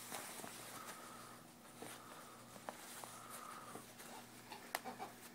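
Faint rustle of fabric and a few light clicks as a baby rocker's fabric liner is pulled tight and hooked onto the plastic frame.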